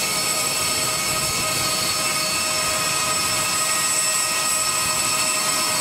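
Jet engine noise: a steady, loud rushing sound with several high, steady whining tones over it.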